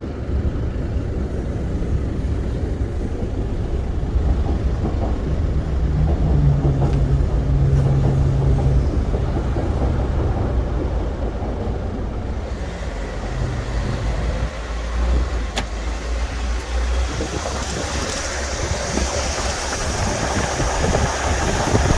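Seoul Subway Line 2 train running over the Jamsil Railway Bridge: a steady low rumble, with a hum between about five and nine seconds in. Heavy wind buffets the microphone throughout, and a brighter hiss builds toward the end.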